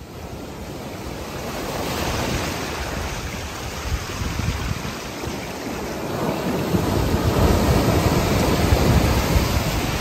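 Ocean surf washing onto a beach, with wind buffeting the microphone. The wash swells louder about two seconds in and again near the end.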